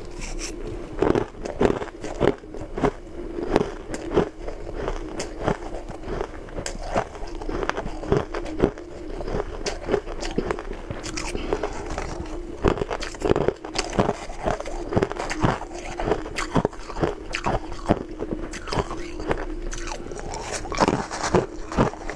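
Biting and chewing mouthfuls of frost-covered ice close to the microphone: irregular crisp crunches, several a second, with brief pauses.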